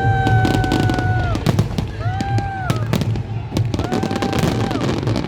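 Fireworks going off in rapid crackling pops and bangs, with a held tone that sounds three times, about every two seconds.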